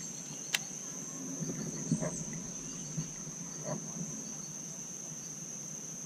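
Insects singing in a steady, high-pitched drone, with faint repeating chirps beneath it. A sharp click about half a second in and a few soft knocks around two to four seconds in.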